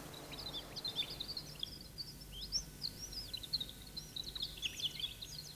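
Songbirds chirping and twittering faintly: many quick, high, rapidly repeated chirps and short pitch glides, a forest birdsong backdrop over a faint low hum.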